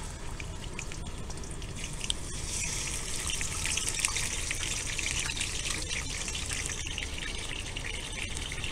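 Trout frying in oil in a wok on a gas camp stove: a steady sizzle with fine crackling, a little louder in the middle.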